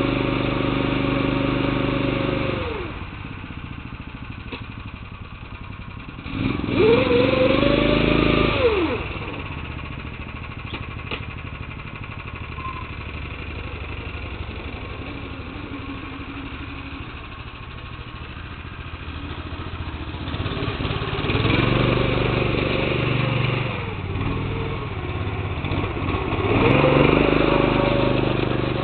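A small old tractor's engine revving and dropping back to idle over and over. It runs high at first and falls to a low idle about two and a half seconds in. It revs up briefly around seven seconds, idles for a long stretch, then revs twice more near the end.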